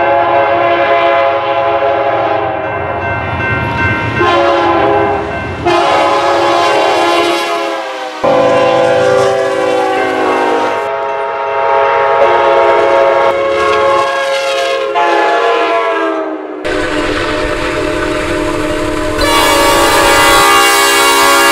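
Locomotive air horns sounding in a quick run of edited clips, each a held multi-note chord over the noise of passing trains. The horn changes abruptly every two to four seconds as one clip cuts to the next.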